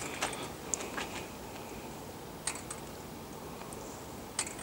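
A few faint, scattered clicks and taps over a quiet background hiss; the motorcycle engine is not running.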